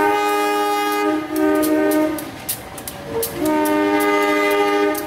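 Multi-note horn of a passing CC 201 diesel locomotive sounding a long blast and then a short one, then after a pause another long blast. Sharp clicks of the wheels on the track come in the gap.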